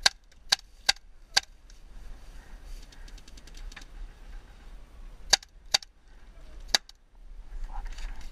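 Tippmann TPX paintball pistol being fired: seven sharp pops, four in quick succession in the first second and a half, then three more between about five and seven seconds in.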